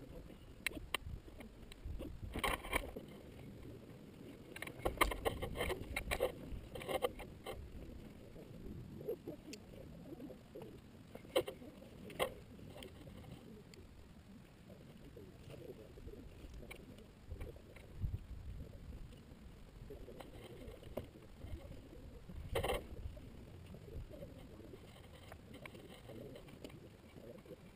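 Wind buffeting the microphone of a camera mounted on a hang glider, with scattered knocks, clicks and rustles as the pilot gets into his harness and handles the glider; one sharper knock about three-quarters through.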